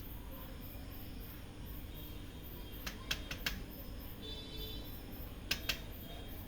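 Several short sharp clicks and taps from handling the photocopier's parts: a cluster about three seconds in and a close pair near the end, with a faint brief high squeak between them, over a steady low background hum.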